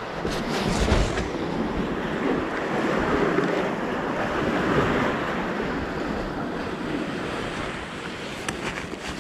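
Sea water surging and washing among the concrete tetrapods of a breakwater, swelling a few seconds in, with wind buffeting the microphone. A few light knocks near the start.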